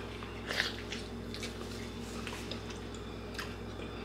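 A person biting into and chewing a sauce-covered burger: a few soft, wet smacking clicks spread over the four seconds, over a steady low hum.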